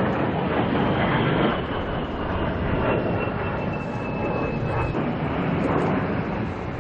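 A-10 Thunderbolt II jet flying past, its twin turbofan engines making a steady rushing noise with a high whine that slowly falls in pitch.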